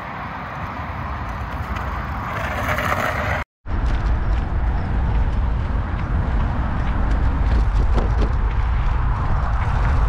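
Mountain bike riding a dirt singletrack trail: a steady rush of wind and tyre noise with rattling clicks from the bike. The sound drops out for a moment about three and a half seconds in and comes back louder, with a deeper rumble.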